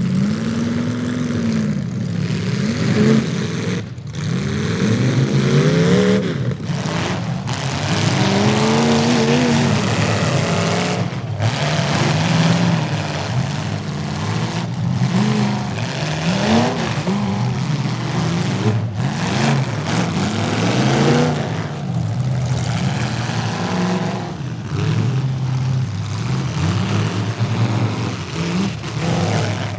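Demolition derby car engines revving up and falling back over and over, several rising and falling pitches overlapping, loud and continuous.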